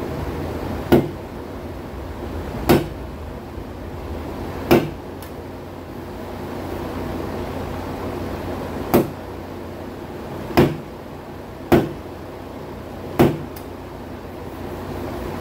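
Seven sharp taps, unevenly spaced, as a light hand tool used in place of a hammer knocks the sheet-metal lip of a car's quarter-panel wheel arch inward. A steady low hum runs underneath.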